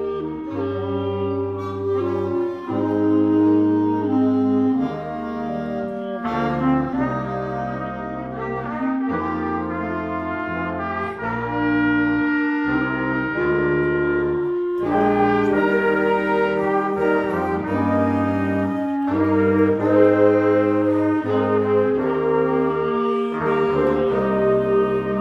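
Student concert band playing a slow piece in held chords that change every second or two, with trumpets and trombones to the fore over flutes, clarinets and saxophones. It is a virtual ensemble, mixed from separate home recordings.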